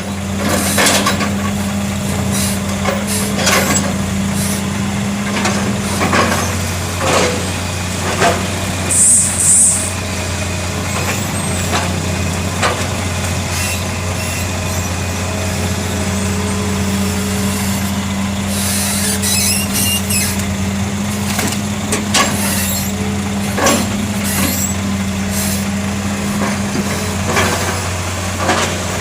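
Heavy diesel engines running steadily under load, with scattered knocks and clanks. Two short hisses of air come about nine seconds in.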